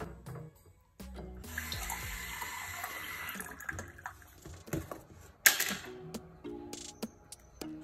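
A water tap running for about two seconds, then a sharp knock about five and a half seconds in, over background music.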